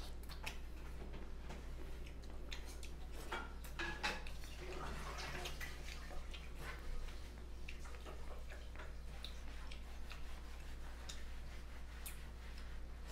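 Fingers squishing and pressing soup-soaked rice on a plastic plate while eating by hand, with scattered small clicks and wet ticks, over a steady low hum.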